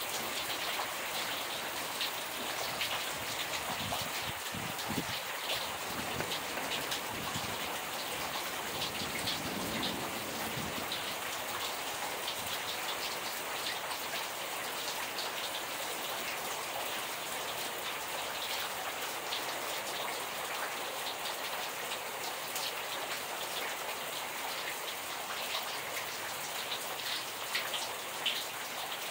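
Steady rain falling into a flooded yard, with frequent sharp ticks of single drops.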